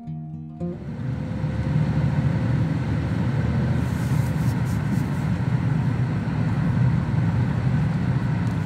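Steady low road and engine noise inside the cabin of a moving Opel car.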